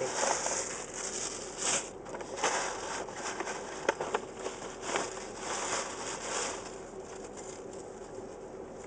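A paper shopping bag rustling and crinkling as it is handled and put down, in irregular bursts with a few light clicks, dying away after about six seconds.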